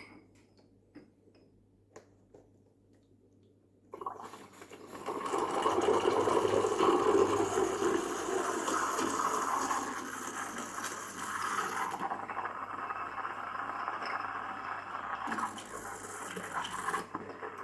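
Milk-frothing steam wand of a Silvercrest SEM 1100 C3 espresso machine, steam hissing and bubbling through a jug of milk. It starts about four seconds in, after a few soft handling clicks, and its sound changes partway through.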